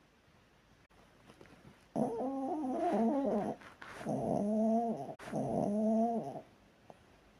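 Chihuahua snoring: three pitched snores of about a second each, starting about two seconds in.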